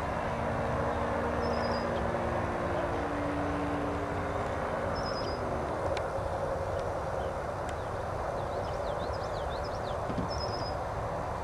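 Engine of a radio-controlled model airplane in flight, droning steadily; its pitch drops slightly and it fades over the first few seconds, leaving a steady hiss. A bird chirps briefly three times.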